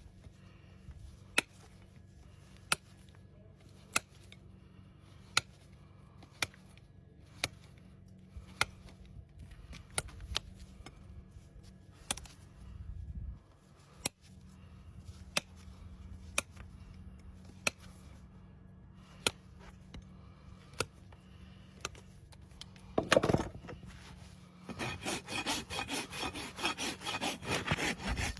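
Sharp single clicks about every second and a half over a low steady hum, then near the end a farrier's rasp starts working the horse's hoof wall in quick back-and-forth scraping strokes.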